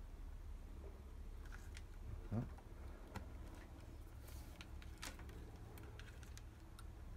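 Faint scattered clicks and rustles of insulated wire terminals being pushed into the plastic connector of a car cabin blower fan and its wires being handled. The loudest moment is a short rising squeak about two and a half seconds in, over a steady low hum.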